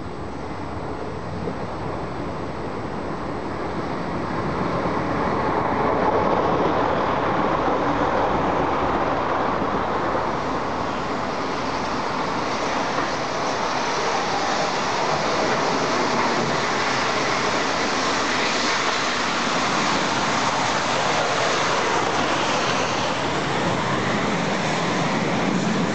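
Two trains passing close by: a diesel multiple unit approaching on the far line, then British Railways Britannia-class steam locomotive 70013 Oliver Cromwell and its train of coaches rolling past on the near line. The sound swells about four seconds in and stays loud and steady.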